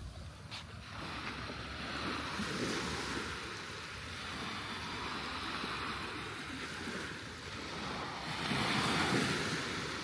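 Small waves washing up onto a sandy beach, the wash swelling about two and a half seconds in and again near the end, with some wind noise on the microphone.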